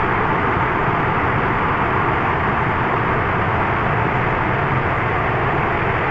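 Loud, steady static-like noise with a muffled top.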